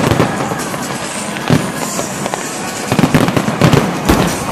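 Large fireworks display bursting: a dense run of sharp bangs and crackles, with heavier booms about one and a half, three and four seconds in.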